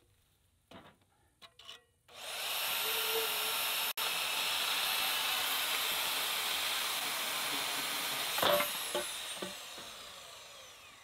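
Vevor portable bandsaw starting up about two seconds in and running steadily as its blade cuts through steel pipe. Near the end there is a clunk, and then the motor winds down with a falling whine.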